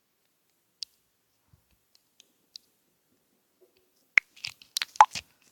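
A few faint isolated ticks, then a quick run of sharp clicks and rustling crackles about four seconds in.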